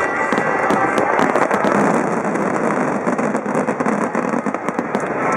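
Fireworks barrage: many shells bursting in quick succession, with a dense crackle of sharp pops throughout.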